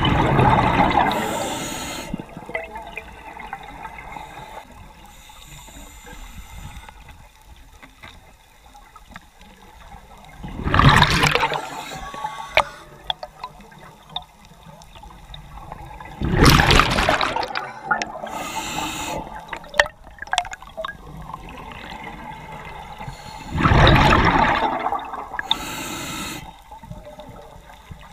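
A scuba diver breathing through a regulator underwater: four loud bursts of exhaled bubbles several seconds apart, with quieter hissing between.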